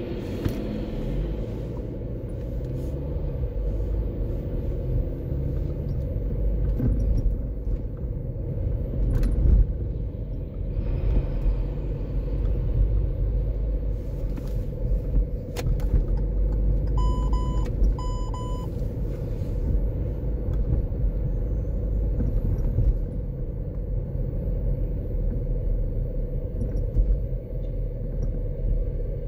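A car driving in slow city traffic: a steady low rumble of engine and tyres on the road. Two short electronic beeps sound about two-thirds of the way through, with a couple of sharp clicks earlier.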